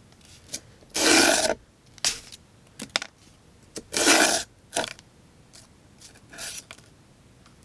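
Folding knife's VG-10 blade slicing through test material in two long cuts, about a second and about four seconds in, with a few short scrapes and taps between them.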